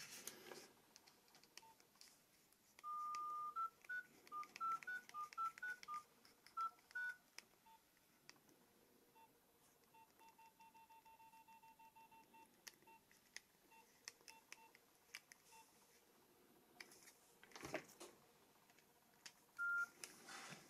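Electronic beeps from a Nokia 2760 phone: a held tone, then a short run of beeps stepping up and down in pitch, then single keypad-press beeps of one pitch, with a quick burst of about seven a second in the middle. One higher beep comes near the end, among a few faint handling clicks.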